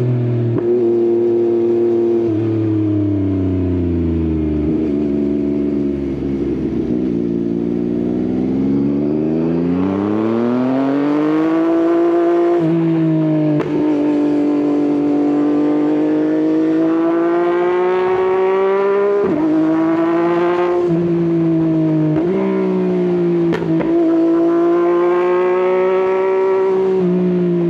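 Yamaha XSR900's inline three-cylinder engine through an Akrapovič exhaust. For the first several seconds the revs fall as the bike slows. It then accelerates, the revs climbing and dropping sharply several times as it shifts through the gears.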